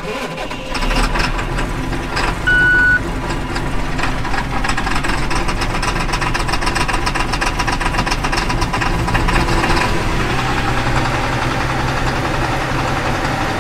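1995 John Deere 8400 tractor's six-cylinder diesel starts and runs, heard from inside the cab, with a short electronic beep about two and a half seconds in; the engine note steadies about ten seconds in. It is a start after hand-pumping the fuel primer, because the tractor's fuel system loses prime whenever it sits.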